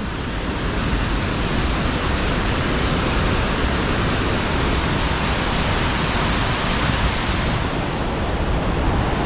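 A waterfall's falling water making a loud, steady rush.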